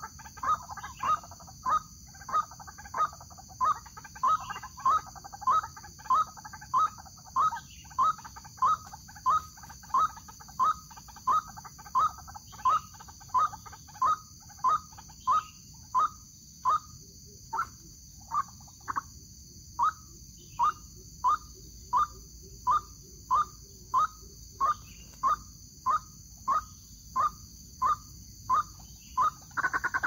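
White-breasted waterhen (ruak-ruak) call, most likely a recording played through a small speaker as a trapping lure. A short call is repeated at an even, mechanical pace of about twice a second, with one brief pause a little past halfway.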